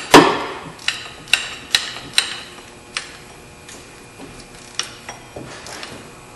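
Ratchet wrench clicking on short back-strokes while the power steering pump's mounting bolts are tightened: a sharp click at the start, then single clicks about every half second, growing fainter after about three seconds.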